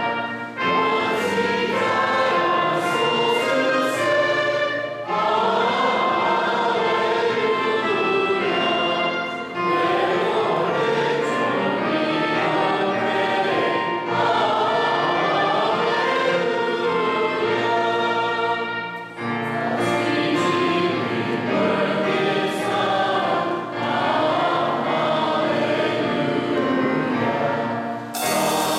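Church choir and congregation singing an Easter hymn in phrases with short breaks between them. A sudden hiss comes in near the end.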